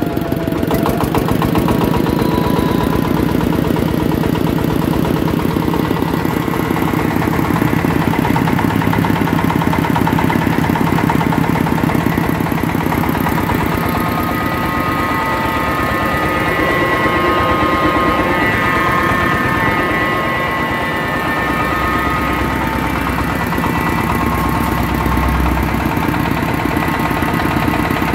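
Single-cylinder diesel engine running steadily, belt-driving an FFC-series flour mill, with a rapid even knock from its firing strokes. Partway through, a few steady higher tones join in, likely from the spinning mill.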